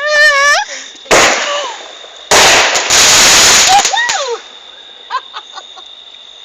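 Consumer firework going off from a holder set in a cinder block: a sharp bang about a second in, then a loud rush of noise lasting about a second and a half. It fires low, which those present put down to it catching on the holder.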